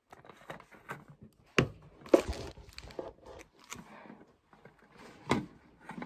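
A plastic water bottle being handled close to the microphone: rubbing and light knocks, with sharp knocks about one and a half seconds in, again a second later, and near the end.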